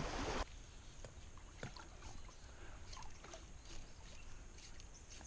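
A loud rush of wind and moving water cuts off abruptly about half a second in. What remains is quiet water lapping around a small boat, with a few faint light knocks.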